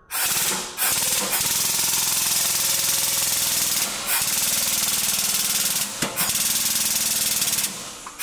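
Air-over-hydraulic bottle jack on a shop press brake pumping with a loud, rapid buzzing chatter as it drives the brake down and bends a sheet-metal panel. It breaks off briefly about a second in and twice more midway, then stops near the end.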